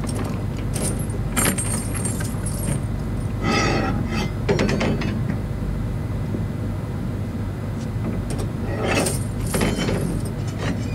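Knocks and rattles of a heavy wooden crate being moved, over a low steady rumble, from a TV drama's soundtrack.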